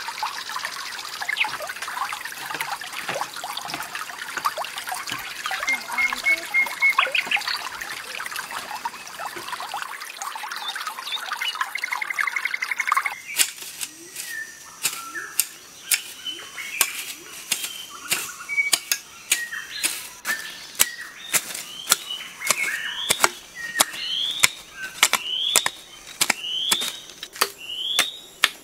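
Flowing water with birds trilling. About halfway through, this gives way to a hoe chopping into stony soil in repeated sharp strikes, while a bird repeats a short rising chirp about once a second.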